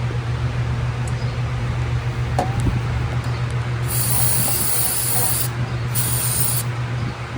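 Two short bursts of pressurised spray hissing, the first about a second and a half long and the second about half a second, over a steady low hum.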